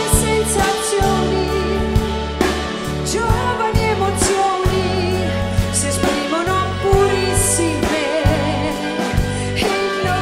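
Symphony orchestra with strings, horns and double basses playing a pop ballad arrangement, with a woman's voice singing over it.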